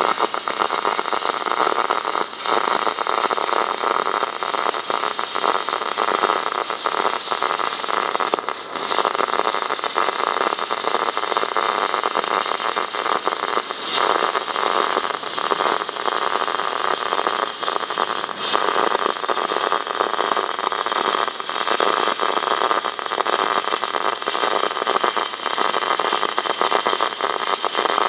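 Semi-automatic MIG/MAG welding arc burning continuously, 1.6 mm wire being laid into 3 mm steel: a steady hiss thick with fine crackling.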